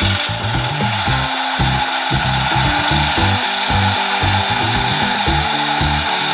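Electronic sound effect from a JCB Teamsterz toy concrete mixer, played through its small speaker: a loud, steady, harsh mechanical noise that starts abruptly and keeps on unchanged. A simple tune of blocky low notes plays beneath it.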